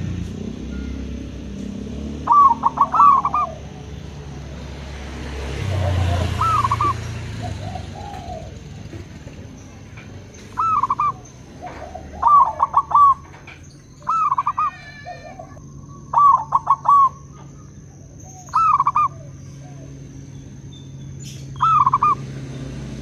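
Zebra doves (perkutut) cooing: about seven short phrases of high, ringing arched coos spaced a few seconds apart, with softer, lower coos between them, as local and crossbred doves answer each other. A faint steady high whine runs underneath, and a low rumble swells about six seconds in.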